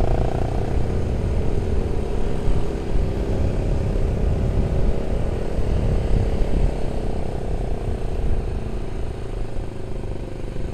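Yamaha New Vixion Advance's single-cylinder 150 cc four-stroke engine running while under way, its note strongest in the first few seconds, with wind rumbling over the helmet-camera microphone. The sound eases off gradually near the end.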